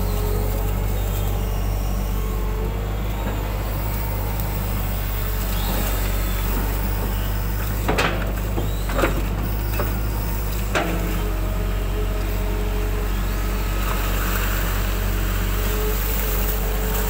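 Hitachi hydraulic excavator's diesel engine running steadily, heard from the operator's cab, with a steady whine over it. A few sharp clanks about eight, nine and eleven seconds in as the bucket digs in the ditch.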